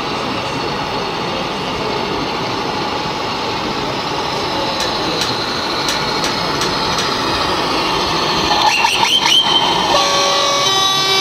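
Steady noisy din of a busy exhibition hall, with a few short horn-like blasts about nine seconds in. Music with held notes starts near the end.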